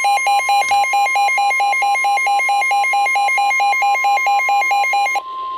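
NOAA Weather Radio warning alarm tone, a steady 1050 Hz tone marking a warning-level alert, with a rapid electronic beeping of about five beeps a second over it. The beeping stops about five seconds in while the steady tone carries on.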